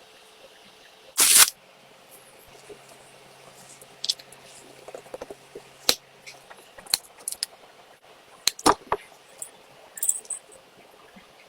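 Miniature cooking utensils making sporadic light clicks and taps, with one louder brief noise about a second in.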